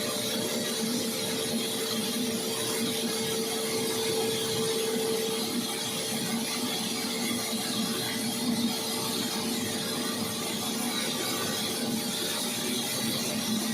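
A machine running steadily, with a constant hum and an even high hiss; one of its tones fades about five seconds in.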